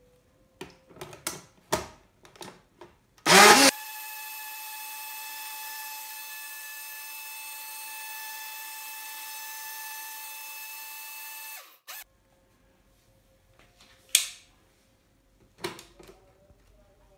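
Kenwood personal bottle blender blending a melon-and-milk shake. A few clicks and knocks come as the blending bottle is seated on the base, then a loud burst as the motor starts about three seconds in. The motor runs with a steady whine for about eight seconds and cuts off abruptly, followed by a couple of knocks as the bottle is lifted off.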